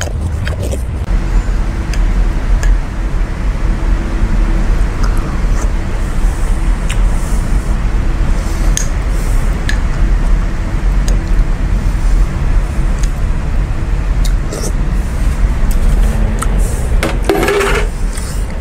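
Steady low rumble throughout, with scattered light clicks as a long metal utensil is worked among cherries inside glass jars.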